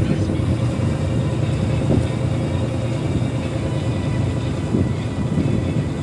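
A tugboat's diesel engine running steadily: a constant low drone with a faint steady hum above it.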